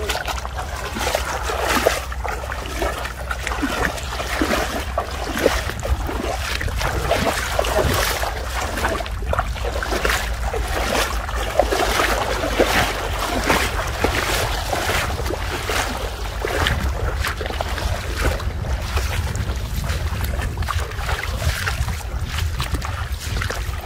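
Bare feet wading through shallow floodwater, a steady run of splashing steps, over a constant low rumble of wind on the microphone.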